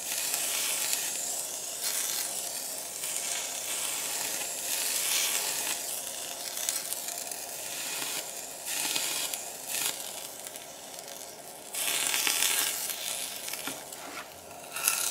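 Electro-polishing brush sizzling and hissing against a brass workpiece as the electrolyte in it boils off to steam under the current. The hiss swells and fades in spells as the brush is worked over the metal. It is a sign of the brush heating fast on a highly conductive metal like brass.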